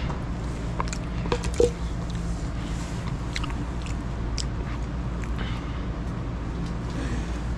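Handling noise as motor oil is poured through a funnel into a small gas engine's crankcase: scattered small clicks and a sharper clank about a second and a half in, over a steady low hum.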